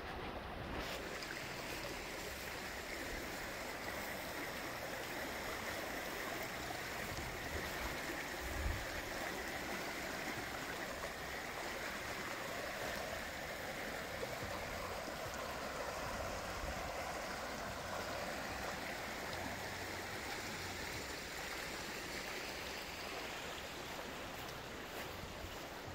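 Fremont River, a small mountain river, running with a steady rush of water. There is a brief low thump about a third of the way through.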